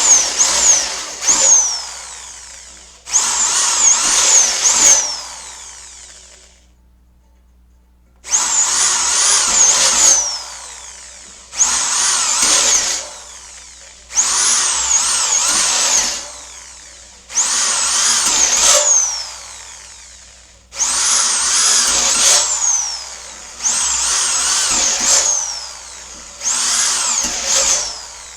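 Electric drill with a step drill bit cutting out holes in metal frame strips, run in about nine short bursts of a second or two each with pauses between. Its high whine wavers up and down while cutting.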